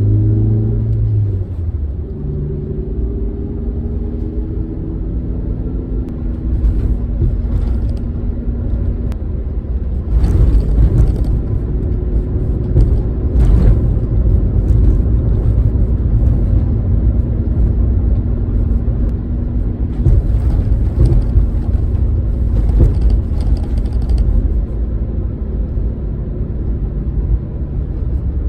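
Subaru Sambar Dias Wagon on the move: its rear-mounted 660 cc four-cylinder engine running under a steady low road rumble, the engine note dropping at the start and then holding steady. Rattly knocks cut through about ten seconds in and again over a stretch around twenty seconds in.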